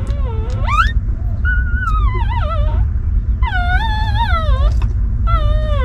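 Newborn puppies crying while nursing: four high, wavering whines in a row, the first bending sharply upward at its end. A steady low rumble runs underneath.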